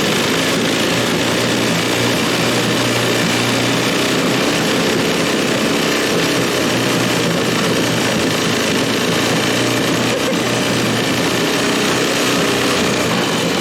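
Small Tecumseh H35 single-cylinder four-stroke engine of a homemade snowmobile running steadily at a constant speed.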